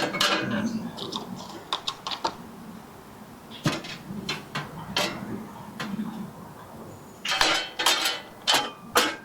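Clanks and clicks of the band saw's metal outer cover being handled and fitted back over the belt pulleys. The sharp knocks are scattered, with a quick cluster near the end.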